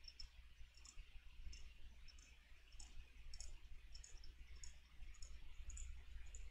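Faint, light clicks, evenly spaced at a little under two a second, as green fly-tying thread is wrapped around a hook shank from a bobbin held at the vise.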